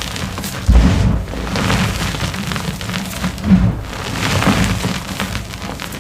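Blocks of dyed and plain gym chalk crumbling and crushing in the hands, the powder falling in a continuous crumbly hiss. Two dull thumps stand out, about a second in and a little past halfway.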